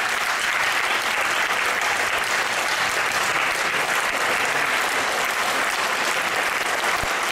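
Audience applauding, a steady, even clapping that holds at the same level throughout.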